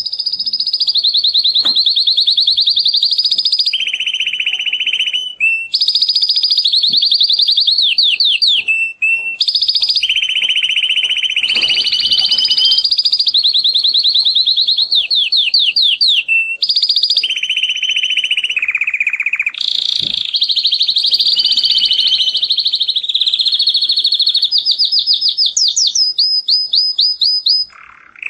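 Male domestic canary in full breeding condition singing a long, loud song of rapid trills. It switches from one trilled phrase to the next every second or two, with a few brief breaks, and stops shortly before the end.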